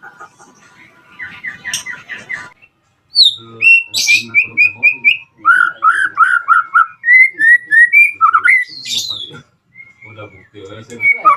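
White-rumped shama (murai batu) singing: loud, varied phrases of clear slurred whistles and quick runs of repeated notes, starting after a brief pause about three seconds in.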